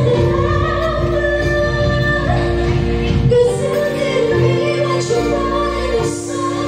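A woman singing karaoke into a microphone over a backing track, holding long notes that slide between pitches.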